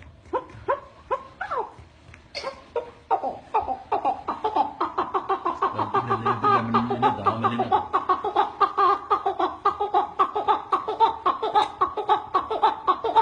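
A person imitating the call of a chukar partridge with the voice: a few separate sharp notes, then a long rapid run of chuk-chuk notes, about seven a second, growing louder after the first few seconds.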